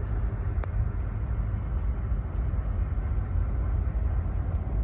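Search-and-rescue helicopter flying close by, heard as a steady low rumble of rotor and engine.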